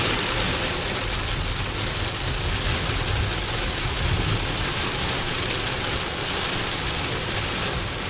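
Heavy rain pelting a moving car's windshield and roof, heard from inside the cabin, over a steady low rumble of tyres on the wet road.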